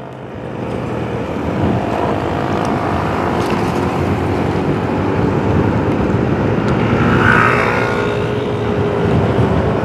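Motorcycle engine running under way, heard from the rider's seat, with wind rush and road noise; it grows louder over the first second or two and then holds steady.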